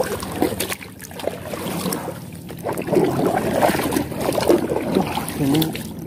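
A wooden paddle dipping and pulling through the water as a small wooden boat is paddled, with water sloshing and splashing around the blade and hull. The sound swells and falls with the strokes.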